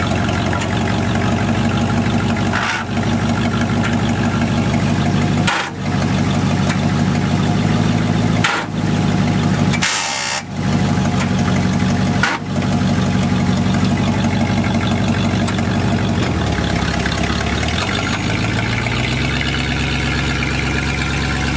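Rock-crawling buggy's engine running steadily under load as the rig backs over rocks. The sound dips briefly several times, and the engine falls to a lower note about two-thirds through, then revs back up near the end.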